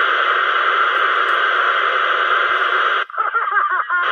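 CB radio speaker hissing loud, steady static that starts and cuts off abruptly after about three seconds. A voice then comes through the radio near the end.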